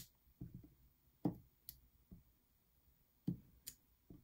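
Clear acrylic stamp block being pressed and tapped down onto paper tags and an ink pad: a series of soft knocks, three louder ones a second or two apart with lighter taps between.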